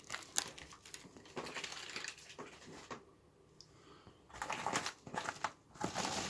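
Plastic packaging bag crinkling and rustling as it is handled and emptied, in irregular bursts with a pause of about a second in the middle.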